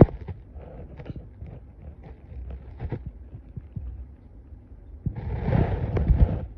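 Handling noise as a Siberian husky puppy is hugged and played with on a bed: rustling of fur and bedding with light bumps, and a louder rustle lasting over a second near the end.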